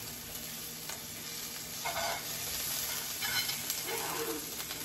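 Butter sizzling as it melts in a hot skillet alongside cooked spinach and vegetables. A spatula scrapes it around the pan now and then.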